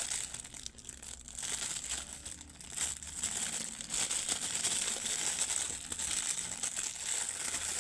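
Packaging crinkling continuously as it is handled and opened for an unboxing, with many small crackles.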